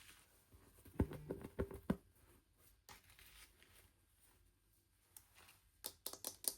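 Faint handling of small plastic toy pieces and packaging: a short cluster of knocks about a second in, then a quick run of crinkly clicks near the end.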